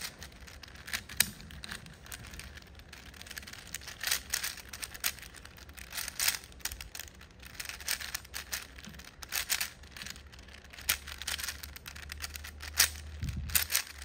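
Plastic 4x4 speed cube being turned fast by hand: an irregular run of quick clicks and clacks as its layers turn.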